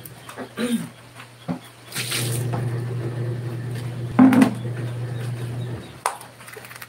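Twin-tub washing machine's motor humming in on-off runs: silent for the first two seconds, running for about four seconds, then stopping. A loud knock about four seconds in and a sharp click about six seconds in.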